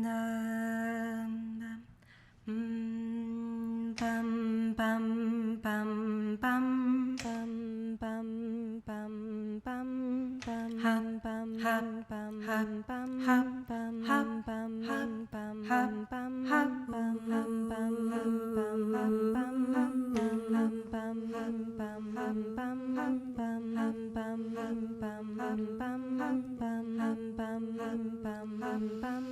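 A woman humming a steady low drone, with mandolin notes plucked in a regular pattern over it from about four seconds in.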